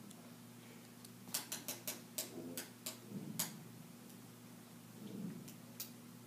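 A quick run of about a dozen small, sharp clicks and taps over about two seconds, starting about a second in, over a steady low room hum.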